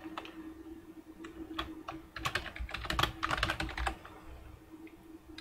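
Typing on a computer keyboard: scattered keystrokes, then a quick run of them around the middle, over a faint steady hum.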